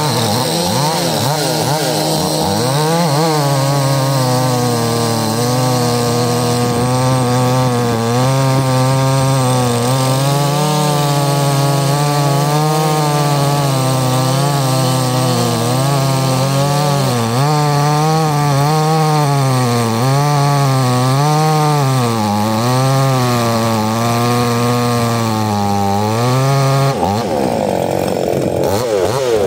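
Two-stroke chainsaw cutting wood under load, its engine note sagging and recovering over and over as the chain bites. The note changes abruptly near the end.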